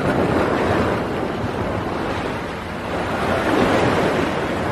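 Sea surf washing against rocks, rising and falling in swells, with wind rumbling on the microphone.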